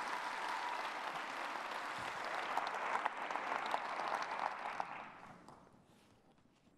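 Audience applauding, a dense patter of clapping that dies away about five seconds in.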